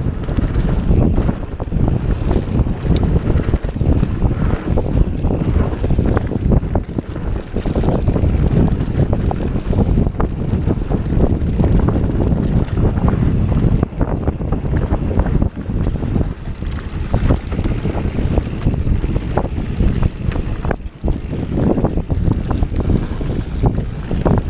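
Wind buffeting the GoPro Hero 3 Black's microphone on a fast mountain-bike descent. Throughout, a steady low rumble is broken by constant small knocks and rattles from the Santa Cruz Hightower 27+ bouncing over hard-pack dirt singletrack.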